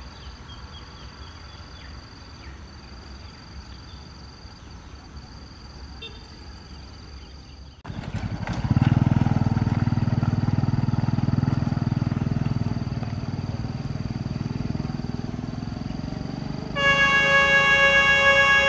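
Diesel locomotive hauling a crane train approaching: a fairly quiet countryside background gives way suddenly about eight seconds in to the engine's steady low rumble. The locomotive's horn then blows a loud, sustained blast for the last couple of seconds.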